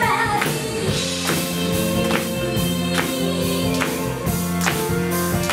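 Live pop band playing a song with a steady drum-kit beat, bass, electric guitar and saxophone, with women's voices singing together over it.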